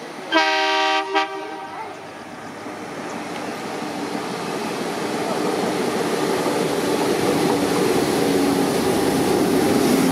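Indian Railways diesel locomotive horn: one blast of about a second, then a short toot. After it the rumble of the approaching diesel-hauled train grows steadily louder.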